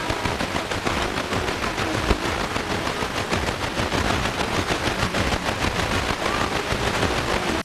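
FM radio static from a Sony XDR-F1HD tuner parked on a frequency with no usable signal: a steady hiss full of dense, rapid crackling.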